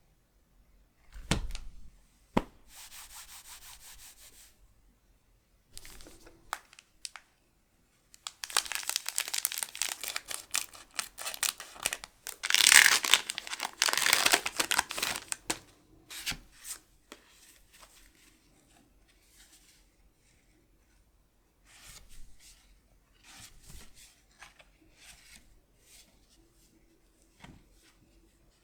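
Foil booster pack wrapper being handled and torn open, with crackling crinkles that are loudest in the middle stretch, amid scattered small clicks and ticks of handling.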